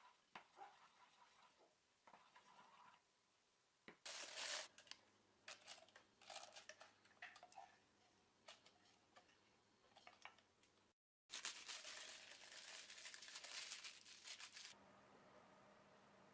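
Faint kitchen handling sounds. A whisk clicks against a small saucepan of chocolate ganache. Then, from about four seconds in, a plastic piping bag crinkles and rustles as the ganache is scraped into it, with a denser stretch of crinkling that stops sharply near the end.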